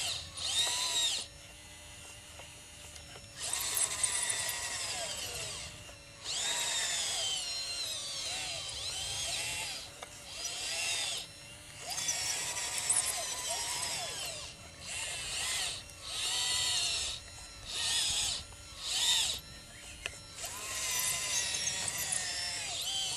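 Scale RC Liebherr LR632 crawler loader model's electric motors and hydraulic pump whining in repeated on-off bursts, the pitch rising and falling as it drives and works the bucket. A faint steady hum fills the short pauses between bursts, with a quick run of brief bursts in the middle.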